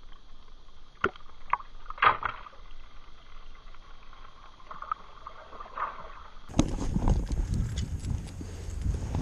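Small splashes and water sloshing against a skiff's hull as a speckled trout is released over the side, a few sharp slaps about a second or two in. About two-thirds through, it gives way to steady wind noise on the microphone.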